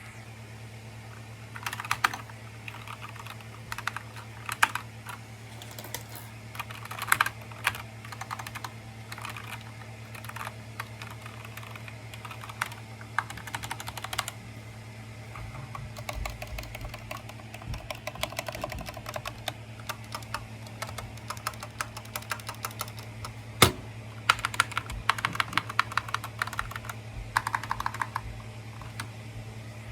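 Epomaker SK61 mechanical keyboard with brown tactile switches being typed on: quick runs of key clicks in bursts with short pauses, and one sharper single keystroke about two thirds of the way through.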